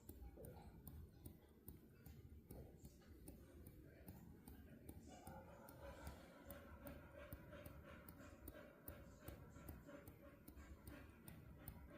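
Near silence: faint, even ticking about three times a second, with a faint steady hum that comes in about five seconds in.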